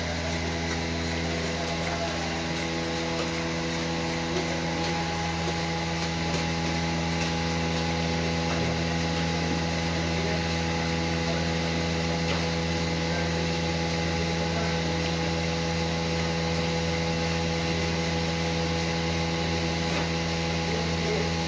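Bucket milking machine running: the steady hum of its vacuum pump, with a faint regular ticking of the pulsator.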